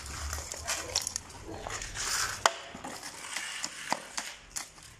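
Steel shovels dumping and scraping a wet mix of cement, soil and uncrushed rubbish into a wooden block mould, and a shovel blade jabbing the mix down to pack it into the corners. Irregular scrapes and knocks, the sharpest about two and a half seconds in.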